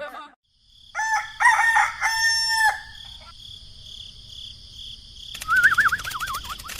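Rooster crowing once, about a second in: a call that rises, holds and falls. Near the end a wavering, whistle-like tone starts.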